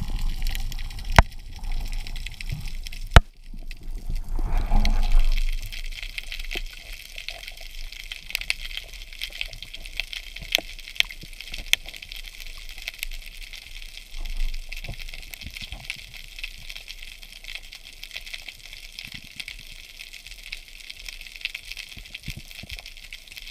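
Water splashing and knocking around a diving speargun and camera, with a sharp knock about three seconds in and a short rush of water near five seconds. From about six seconds in the sound is underwater, heard muffled through the GoPro's waterproof housing: a faint steady crackle of many small clicks over the reef.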